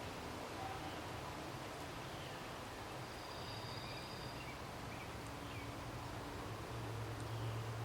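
Outdoor ambience: faint, scattered bird chirps over a steady low hum that grows a little stronger near the end.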